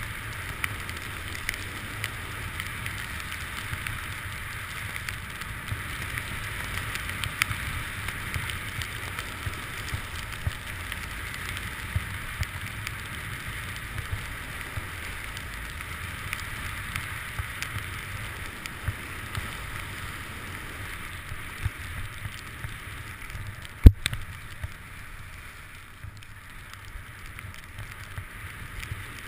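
Skis sliding down a snowy piste: a steady scraping hiss from the skis on the snow, with a low rumble underneath and small ticks. A single sharp knock about four-fifths of the way through is the loudest sound.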